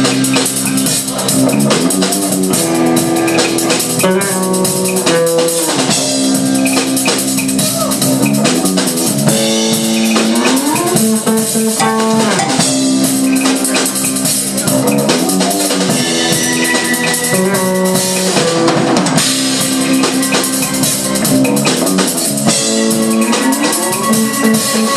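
Live rock band playing an instrumental passage between sung verses: drum kit and electric guitars, with sliding guitar lines.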